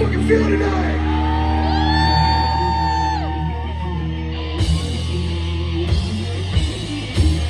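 Heavy metal band playing live: distorted electric guitar and bass sustain a low chord while a high held note bends up and slides away, then several sharp drum hits land in the last few seconds.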